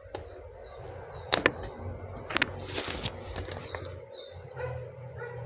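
Hands working at a tight puzzle box's packaging: a few sharp clicks and taps, with a brief rustling scrape about three seconds in.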